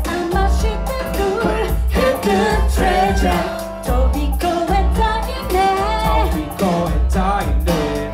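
Live pop music performance: singing over a heavy, pulsing bass beat.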